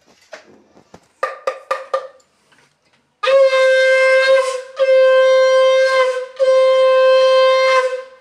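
Conch shell (shankha) blown in three long, steady blasts with short breaks between, starting about three seconds in. It is preceded by a few short clicks.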